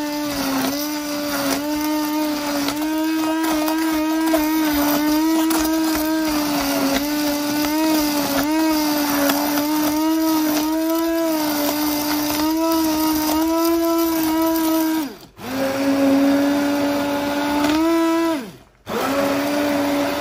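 Immersion stick blender running in a saucepan of cooked strawberries, puréeing them into a coulis; its motor whine wavers slightly in pitch as the blade churns the fruit. It cuts out briefly twice, about fifteen and nineteen seconds in, starting again each time.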